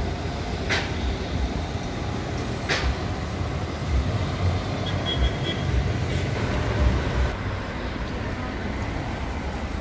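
City street traffic: a steady low rumble of engines from a city bus and cars, with a tram close by. Two sharp clicks sound within the first three seconds.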